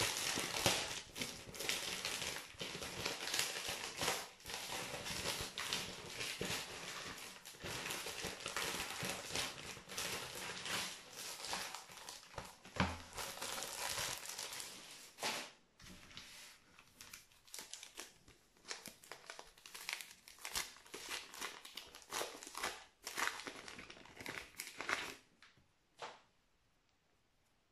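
Plastic wrapping of a Topps Match Attax trading-card multipack and its packs being crinkled and torn open by hand. Dense crackling for about the first fifteen seconds, then sparser crinkles and rustles that stop a little before the end.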